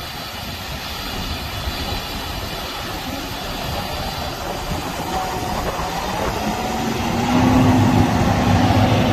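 Steady rumble of vehicle noise, with an engine hum that grows louder about seven seconds in.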